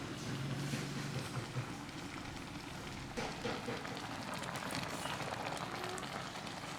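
Steady rain falling, an even hiss, with a few faint light clicks in the second half.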